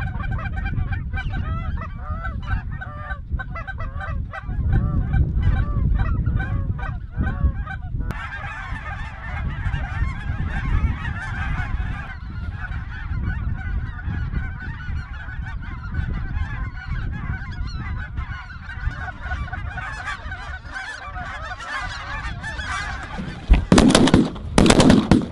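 A large flock of geese calling and honking overhead in a dense, continuous chorus. Near the end several shotgun blasts go off in quick succession.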